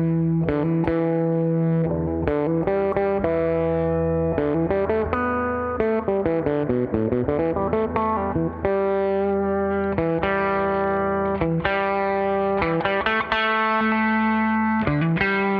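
G&L ASAT Classic electric guitar played through a Fender Princeton 65 amp: ringing chords and held notes, with a quick run of single notes in the middle.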